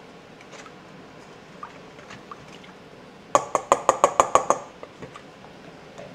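Metal spoon stirring rice-flour batter in a stainless steel mixing bowl: faint scraping ticks, then a quick run of about nine sharp clinks of the spoon against the bowl, each ringing briefly.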